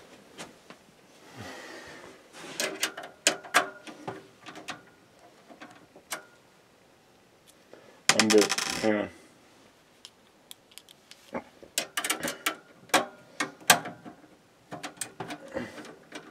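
Small metallic clicks and clinks of screws and a screwdriver being handled against a desktop computer's steel case, coming in scattered clusters, with one brief louder noise a little past halfway.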